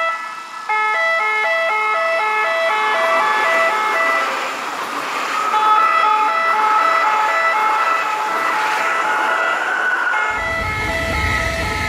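Automatic track warning system (Rottenwarnanlage) horns sounding a rapidly repeating pattern of alternating high and low notes, the signal that warns track workers of an approaching train. An S-Bahn class 423 electric train runs past in the middle, its rushing noise swelling over the tones. A low rumble comes in near the end.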